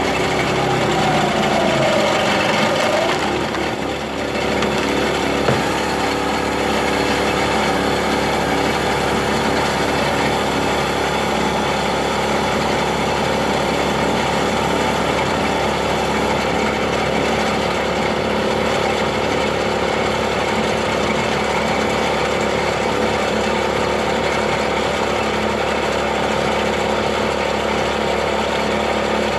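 Small gas engine of a hydraulic log splitter with a 13 gpm two-stage pump, running steadily under load while the ram pushes a large pin oak round through the wedge. A wavering whine glides down and back up in the first three seconds, and a single sharp crack comes about five seconds in.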